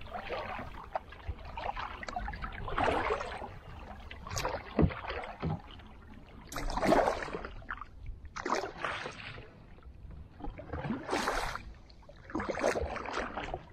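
Kayak paddle strokes through lake water: a splashy swish every second or two as the blades dip and pull.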